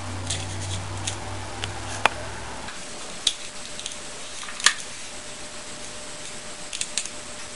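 Scattered small clicks and taps of hands handling a styrofoam cup, cardboard strips and a hot glue gun, several sharp ticks a few seconds apart. A low hum underneath stops about a third of the way in.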